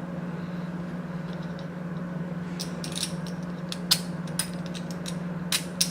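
Small hard clicks and clinks of screws and beam parts being handled during assembly, scattered through the second half and loudest about four seconds in and near the end, over a steady low hum.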